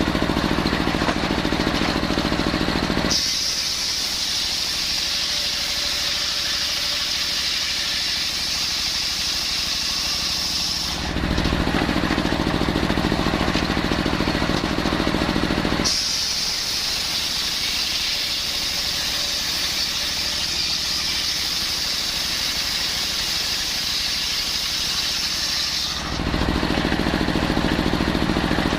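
Circular sawmill blade cutting young coconut-palm timber, twice: a high steady whine while the blade is in the wood from about 3 to 11 seconds and again from about 16 to 26 seconds, with the saw's drive running free and lower-pitched in between and near the end.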